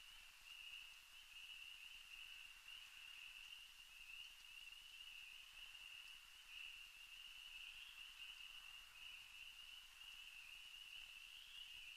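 Near silence with a faint, steady high-pitched drone.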